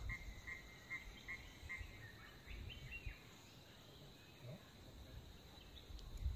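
Quiet outdoor ambience: a run of evenly spaced, short, high chirps, about two a second, that fades out about two seconds in, followed by a few fainter scattered calls over a low rumble.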